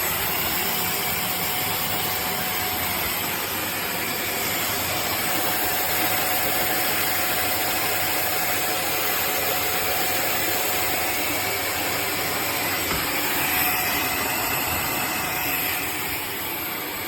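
Shark DuoClean vacuum cleaner running steadily: an even rush of air with a faint whine from the motor.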